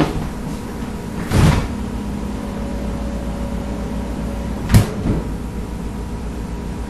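Refrigerator door being pulled open, with a sharp click about five seconds in, followed by a softer knock. A brief rustling swish comes earlier, about a second and a half in, and a steady low hum runs underneath.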